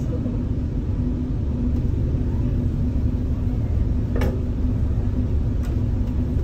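Ferry boat's engine running under way: a steady low rumble with a constant hum, heard from inside the cabin. A single brief click about four seconds in.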